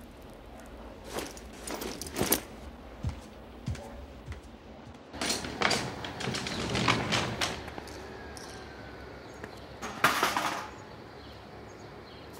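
Short knocks and rustles, then a broom sweeping paving stones in several quick strokes about two a second, with one more sweep near the end.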